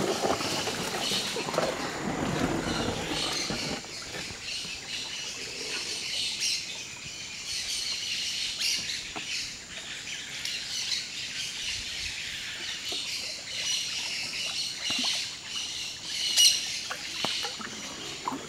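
Amazon rainforest birds calling and chirping throughout, with one loud high call near the end. Over the first few seconds there is also the low slosh of a canoe paddle working the water.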